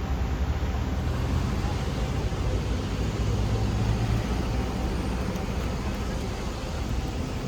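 City street traffic: a steady rumble of passing cars and buses, with one vehicle's engine hum growing louder about three seconds in and fading a second later.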